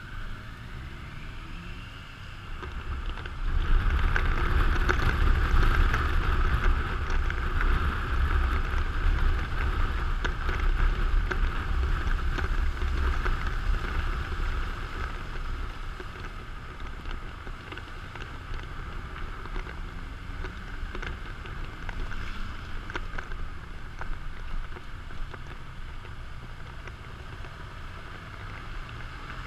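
Motorcycle ride on a wet road heard from a helmet camera: wind buffeting the microphone over the engine and the hiss of tyres on wet tarmac. The buffeting is heaviest from about four seconds in to about halfway, and the engine note climbs near the start and again at the end.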